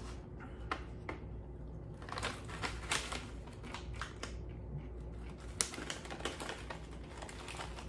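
Plastic pouch crinkling and rustling as it is handled and opened, with irregular small clicks and one sharper click about five and a half seconds in.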